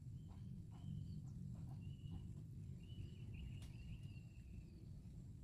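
Quiet waterside ambience: a low background rumble with faint high bird calls, short ones early and one drawn out for about a second and a half in the second half, over a faint steady high tone. A few faint ticks sound in the first second and a half.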